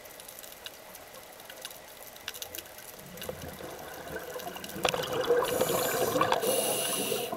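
Underwater, a scuba regulator's exhaled bubbles rush and gurgle past the microphone, building about three seconds in and loudest over the last two seconds, over faint scattered ticking clicks of the seabed.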